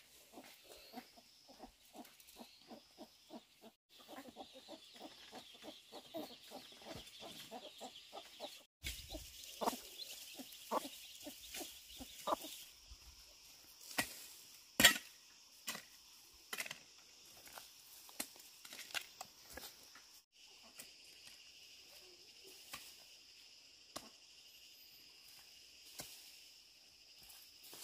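Chickens clucking, a quick run of short clucks through the first dozen seconds, then scattered sharp knocks, the loudest about fifteen seconds in.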